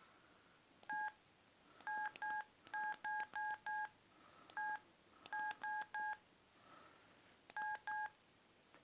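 Mobile phone keypad tones from a Sony Ericsson Z600: about thirteen short beeps of the same two-tone pitch, each with a faint key click, in irregular groups as the keys are pressed.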